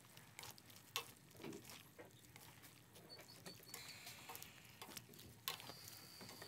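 Faint, scattered clicks and scrapes of a wooden spatula tossing stir-fried pork belly and vegetables in a pan, barely above near silence.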